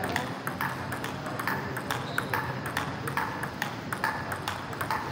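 Table tennis rally: the celluloid-type plastic ball clicking sharply off the bats and the table, a steady string of ticks about three a second.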